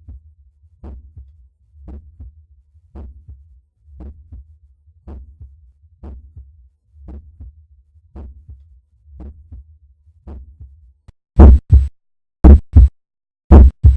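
Heart sounds heard through a stethoscope over the pulmonary valve area: a regular lub-dub beat, about one per second. The beat is faint at first and turns much louder and sharper about eleven seconds in.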